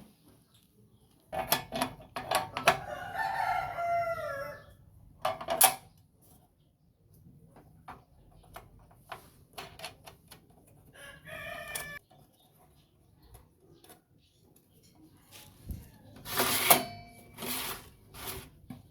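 Rooster crowing several times: a long crow ending in a falling pitch, then shorter crows later on, with sharp clicks and knocks between them.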